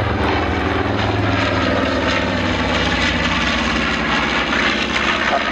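North American B-25 Mitchell bomber flying past, its twin radial engines and propellers giving a loud, steady drone.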